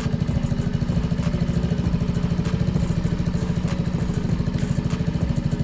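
Yamaha NMAX 155's single-cylinder four-stroke engine idling steadily through an aftermarket R9 Alpha slip-on exhaust with its dB killer in, giving an even, pulsing exhaust note.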